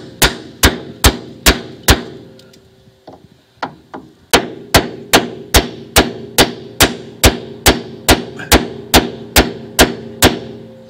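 Hammer blows on a wooden block, driving a new rear wheel bearing into a Mercedes SLK's hub carrier. The blows come evenly, about two and a half a second, with a pause of about two seconds near the start, and a low ringing note hangs under them.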